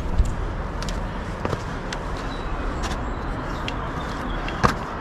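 Steady rushing noise with a few irregular sharp clicks, the loudest about four and a half seconds in: a trail runner's slow steps on a steep climb, picked up by a body-worn camera.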